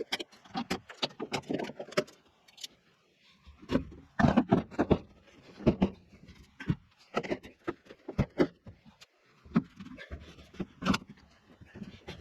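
A run of irregular knocks, clunks and rattles, some bunched together, with short gaps between them.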